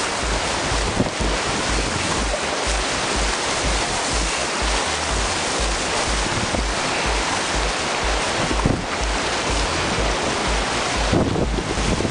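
Whitewater rapids rushing steadily around an open canoe, with wind buffeting the microphone.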